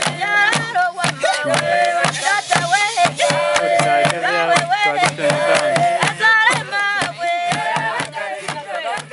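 Voices singing a song over a steady beat of sharp percussive strokes, about three to four a second, with a sustained low tone beneath. The song starts to fade near the end.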